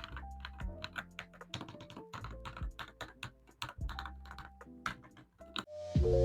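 Typing on a Redragon Galatin Pro K719 mechanical keyboard: a run of irregular, quick keystroke clicks over faint background music. Near the end, louder music comes in.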